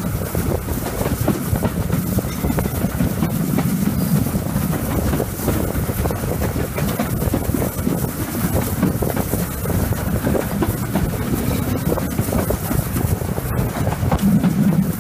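Steam train hauled by GWR Small Prairie 2-6-2 tank engine No. 5542 running along the line at speed, heard close behind the engine: a steady, loud running noise of the locomotive and wheels on the rails.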